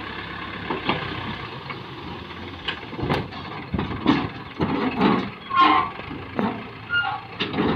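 Tractor engine running while its raised tipping trailer empties a load of soil, the low engine hum thinning about a second and a half in. Irregular knocks and clatter follow from about three seconds in.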